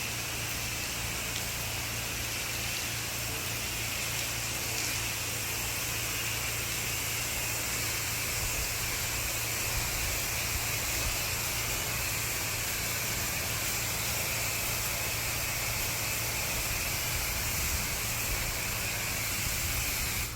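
Pressure washer spraying water: a steady hiss of the jet with a low machine hum underneath, unbroken throughout.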